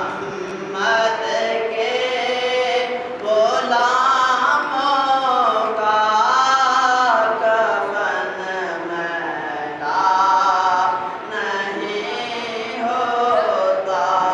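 A young man singing a naat, an Urdu devotional song in praise of the Prophet, unaccompanied, in long melodic phrases with held, wavering notes.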